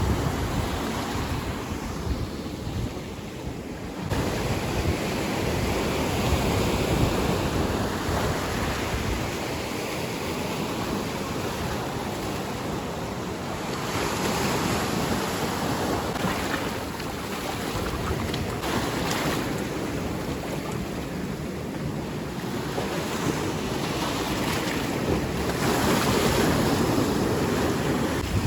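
Waves breaking on a shore in a steady wash that swells and eases every few seconds, with wind buffeting the microphone.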